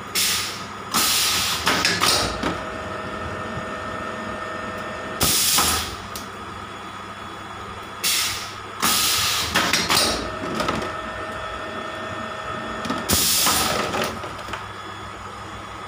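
HDPE blow-molding machine running with a steady hum, its compressed air hissing in loud bursts about every four to five seconds as it blows and vents each bottle.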